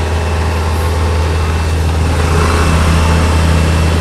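Hitachi mini excavator's diesel engine running steadily with a deep hum. It grows a little louder about halfway through as the boom swings a concrete slab hung from its bucket.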